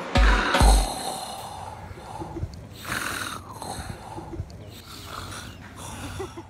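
A man snoring: several rough, noisy snoring breaths one after another, following two deep beat thumps near the start as the remix's music ends.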